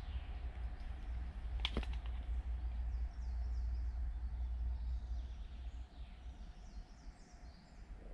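Forest ambience: faint birds chirping over a steady low rumble, with one sharp click just under two seconds in.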